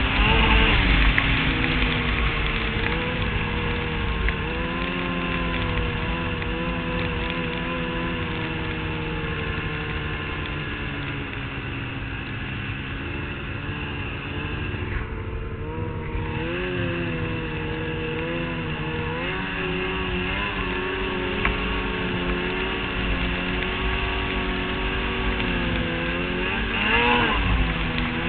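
Polaris XC 800 SP snowmobile's two-stroke twin engine running under way, its pitch rising and falling with the throttle. The engine eases off about fifteen seconds in, then picks up again, and revs up briefly near the end.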